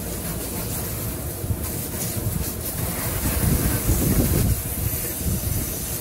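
Water from a hose spraying through a rooftop AC unit's condenser coil, washing it from the inside out, a steady rushing noise that grows louder for a second or so in the middle.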